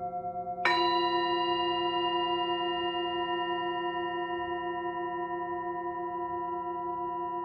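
A singing bowl struck once about half a second in, its several tones ringing on and slowly fading, over the pulsing ring of the previous strike.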